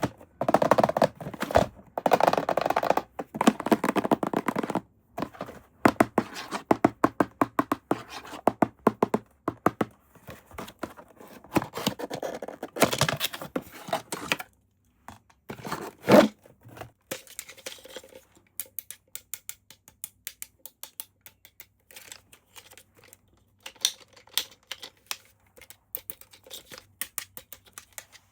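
Toy packaging being torn and handled: rustling and tearing for the first few seconds, then runs of rapid small clicks and taps from plastic parts, with one louder knock partway through.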